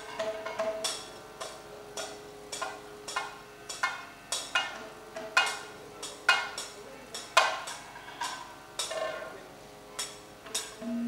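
Sparse, slow Kathakali percussion accompaniment: strokes on a maddalam barrel drum and ringing metallic strikes, coming irregularly about one a second, over a faint steady drone.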